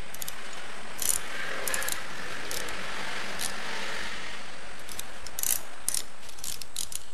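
Hand crimping tool clicking in short runs as it crimps a ring terminal onto a welding earth cable, over a steady hiss.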